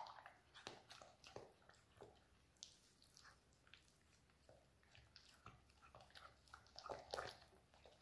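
Faint wet squelching and irregular light clicks of a metal fork beating cooked pumpkin pulp with egg and milk in a glass bowl.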